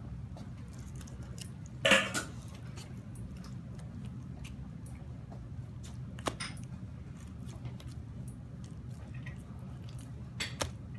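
Boning knife cutting and scraping through raw chicken leg meat on a plastic cutting board: quiet wet handling and cutting sounds over a steady low room hum, with a short louder noise about two seconds in and a sharp click about six seconds in.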